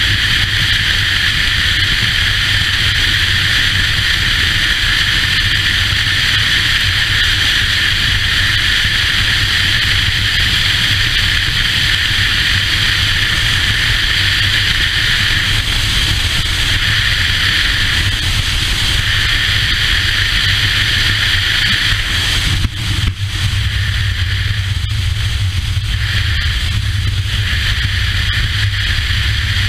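Motorcycle cruising at highway speed: steady wind rush over the bike-mounted camera's microphone, with the engine's low, even drone underneath. There is a brief dip in the sound about three quarters of the way through.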